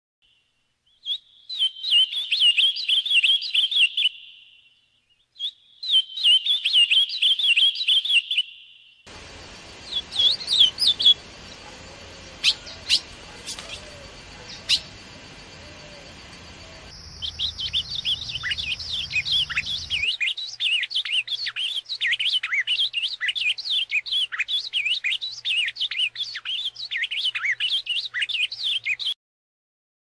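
Birdsong from several recordings in a row: first an ultramarine grosbeak (azulão) singing two short warbled phrases, then a different recording with background hiss and a few sharp high notes, then a long run of fast, high twittering song.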